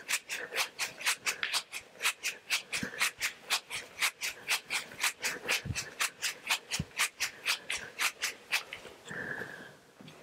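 TOGU Brasil shaker weights, hand-held tubes filled with loose granules, shaken hard in a fast, even rhythm of about five rattles a second; the rattling stops about a second and a half before the end.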